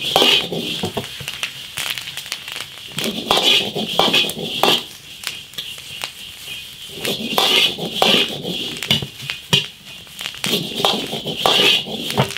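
Chili peppers stir-frying in an iron wok: a metal spatula scrapes and clinks against the wok in repeated strokes over the frying, the strokes coming in pairs every few seconds.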